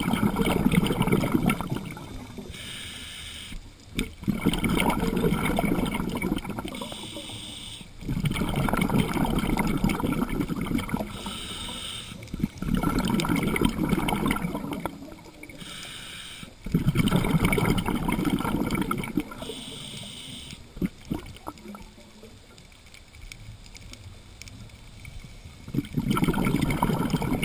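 Scuba diver breathing through a regulator underwater, recorded close at the diver's face: a short hissing inhale, then a longer burst of bubbling exhaled air, repeating about every four seconds. The bubbling pauses for several seconds in the later part before returning near the end.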